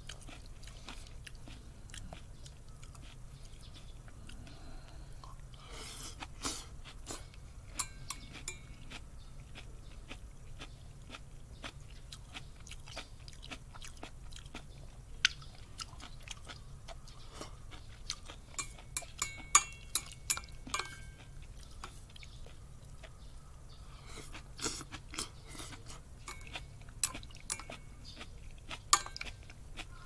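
A person chewing and eating mouthfuls of miso soup with onion and American geranium leaves. Many short, sharp clicks come in bunches a few seconds in, in the middle and near the end, over a steady low hum.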